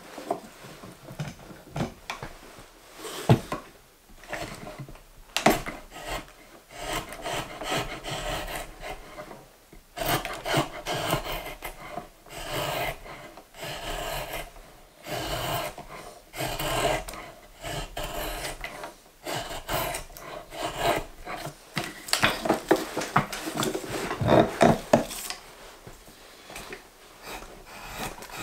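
Drawknife shaving a green maple spoon blank, a run of separate scraping strokes that peel off long curls of wood.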